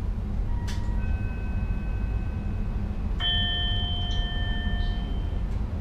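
Two bell-like chime notes in the cab of an NS Sprinter Lighttrain, each starting with a click: one about a second in, then a lower one about three seconds in, each ringing for about two seconds. Under them runs the steady low rumble of the train.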